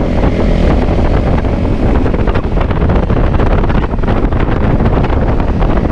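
Wind buffeting the microphone on a moving dirt bike, with the bike's engine running underneath.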